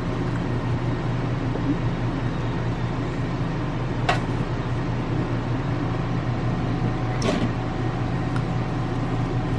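Steady low mechanical hum with a constant drone, broken by two brief sharp clicks about four and seven seconds in.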